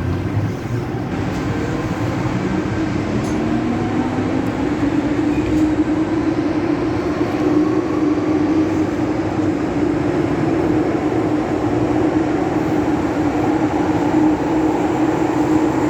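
MTR Metro-Cammell M-Train electric multiple unit on the move, heard from inside the car: the traction motor whine rises in pitch over the first few seconds as the train gathers speed, then holds steady over the running rumble.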